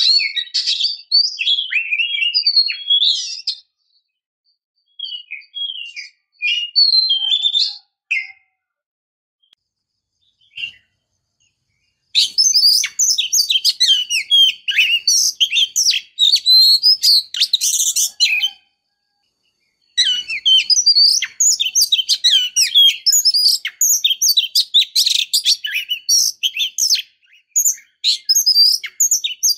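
Oriental magpie-robin (kacer) singing a fast, varied song of chirps and whistles in phrases broken by short pauses, denser and fuller from about halfway in.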